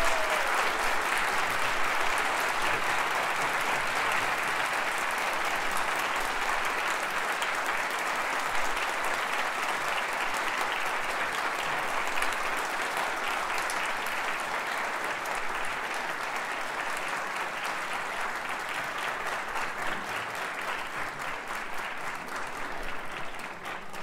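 Concert-hall audience applauding at the end of an orchestral piece, steady at first and slowly dying away toward the end.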